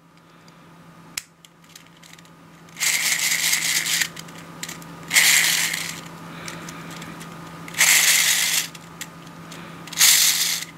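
Meshing 3D-printed plastic bevel gears of a gear fidget spinner whirring with a rattling buzz as they are spun by hand, in four bursts of about a second each, with a single click about a second in.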